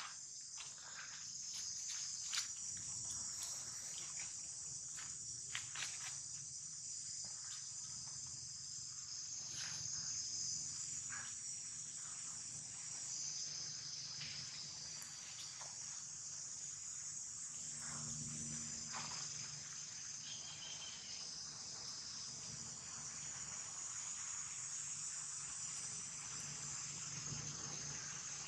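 Steady, high-pitched insect chorus of crickets or cicadas, with a few light clicks and rustles scattered through it, most in the first several seconds.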